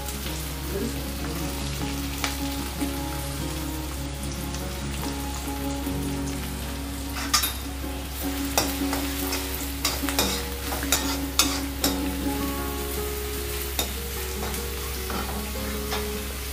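Chopped onion and garlic frying in hot oil in a kadhai: a steady sizzle, with a metal spoon clinking and scraping against the pan as the onion is stirred, several times in the second half.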